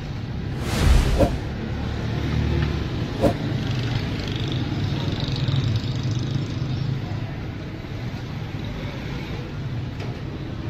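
Steady low hum of street traffic, with a brief loud rush about a second in and a single sharp knock a little after three seconds.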